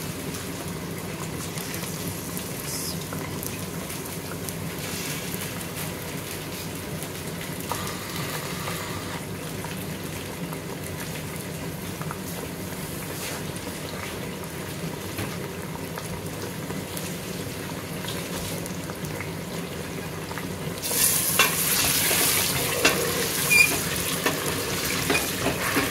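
Raw chicken pieces sizzling in hot oil with browned onions and garlic in a pressure cooker pot. About 21 seconds in it gets louder as a spatula stirs the pieces and scrapes the pot.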